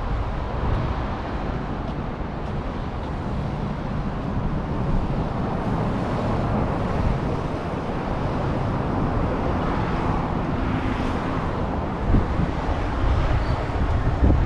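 Road traffic: cars passing in a steady wash of tyre and engine noise with a low rumble, one passing louder about ten seconds in.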